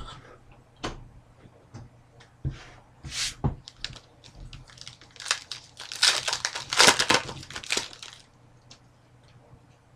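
Plastic trading-card pack wrapper being torn open and crinkled by hand, with small clicks of cards being handled. The heaviest crinkling comes in the middle of the stretch, then dies away near the end.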